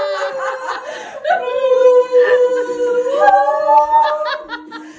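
Voices singing long held notes to a ukulele, with laughter mixed in; the sung pitch holds steady and then steps up twice in the second half.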